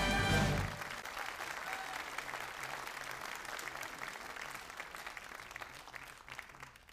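Audience applauding, fading gradually away. The band's last chord cuts off within the first second.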